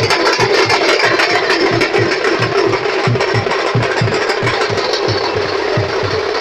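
Loud street-band music driven by big bass drums, beaten about four or five times a second under a dense, noisy wash of sound.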